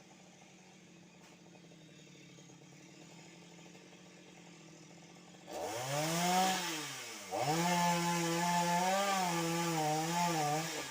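Chainsaw engine idling quietly, then revved up about five and a half seconds in, dropping back briefly, and revved again and held at high speed for about three seconds with a wavering pitch before falling away near the end.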